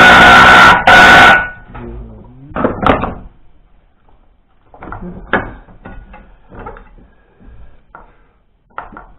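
A loud power tool with a steady high whine runs and cuts off suddenly about a second and a half in, followed by scattered light metallic clinks and knocks of parts and tools being handled.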